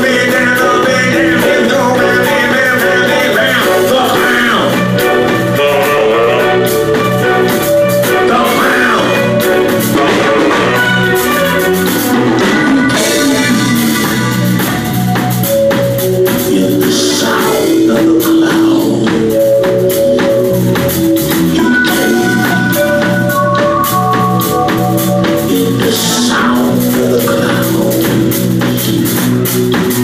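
Live band music: guitar and drum kit playing a steady beat under held notes.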